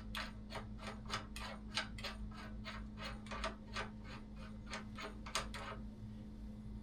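Ratchet wrench clicking at about four clicks a second as the fork's steering-stem nut is run down, stopping near the end.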